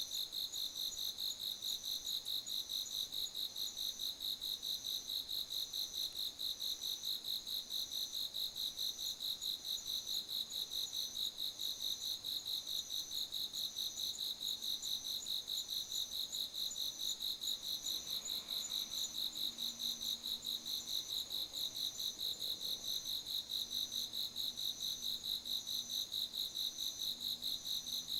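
Autumn crickets singing together: a steady, high, pulsing trill with a second, higher chirp repeated at an even rapid beat.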